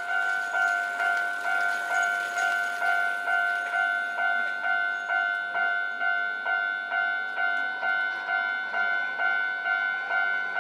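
Japanese railway level-crossing warning bell ringing its two-tone 'kan-kan' in an even rhythm, about two strikes a second. It is the signal that a train is approaching and the crossing is closing or closed.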